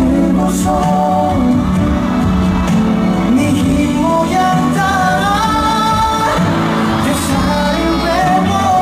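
A pop song: a sung melody, with held and gliding notes, over instrumental backing.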